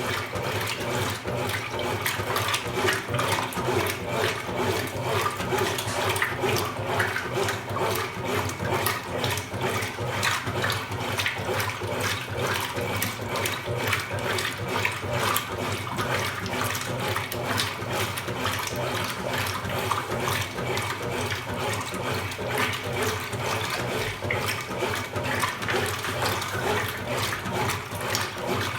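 Consul Supercargo 8 kg top-loading washing machine running its wash cycle: water churning and splashing in the tub without a break, over a steady low motor hum.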